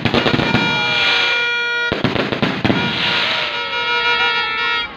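Aerial fireworks going off: sharp bangs near the start and about two seconds in, with crackling between. A steady pitched tone sounds twice over them, each time for about two seconds.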